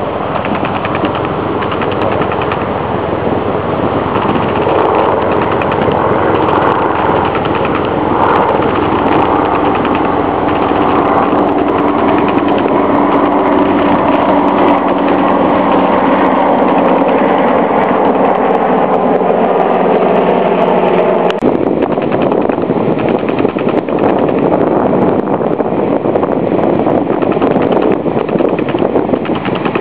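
A small engine running steadily and loudly, with a rough, rapid texture. Its steady hum sinks slightly in pitch and stops abruptly about 21 seconds in, while the rough noise carries on.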